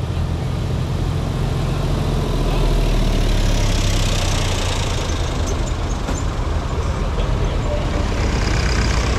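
Vintage tractor engine driving past close by: a steady low engine drone that swells to its loudest about three to four seconds in as the tractor goes by, then eases as it pulls away.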